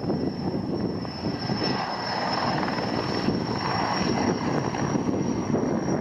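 Erickson S-64E Air-Crane heavy-lift helicopter in flight, a steady rotor and engine drone with a thin, steady high whine over it.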